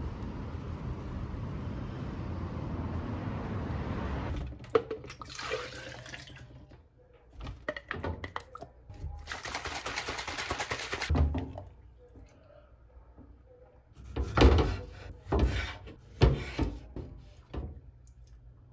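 A steady low outdoor rumble of wind and traffic, which cuts off about four seconds in. Kitchen sounds follow: items handled on a stainless steel counter, water running from a tap in two short stretches, and a few sharp knocks on a wooden cutting board near the end.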